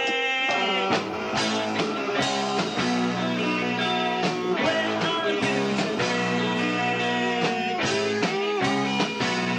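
Rock band playing live: electric guitar over drums, with regular drum hits and the full band coming in about a second in.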